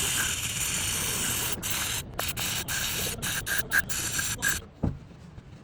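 A hissing spray: one long burst, then a quick string of short bursts, stopping about four and a half seconds in, with a brief low knock just after.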